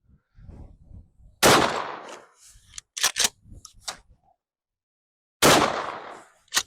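Two shotgun blasts about four seconds apart, rifled slugs fired at a cinder block, each with a short trailing echo. A few sharp clicks fall between the shots.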